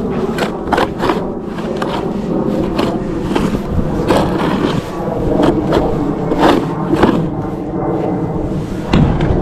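Repeated scraping strokes of a tool clearing snow, with irregular sharp scrapes throughout.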